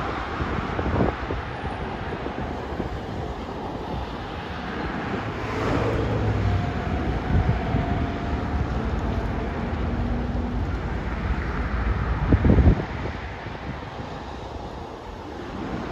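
Street traffic: cars driving past, with wind on the microphone. A brief louder burst about twelve and a half seconds in.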